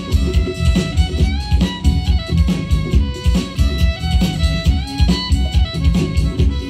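Live band playing an upbeat tune: fiddle and accordion carrying the melody over electric guitar and drums with a steady beat.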